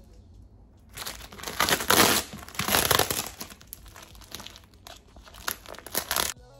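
Clear plastic wrapping on a cardboard shipping box crinkling and tearing as it is pulled off by hand. The rustling comes in bursts starting about a second in, loudest around two seconds in, then in shorter scattered bursts.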